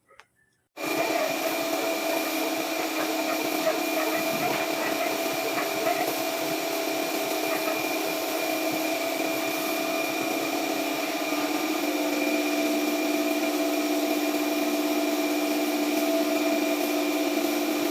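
A steady-running electric motor with a whine, starting abruptly about a second in and running on evenly.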